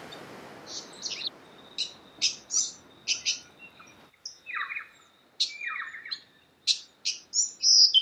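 Small songbirds calling: a quick series of sharp high chirps and short trills over a thin, steady high whistle, joined in the second half by lower, falling call phrases. A steady rushing noise under the first half cuts off abruptly about four seconds in.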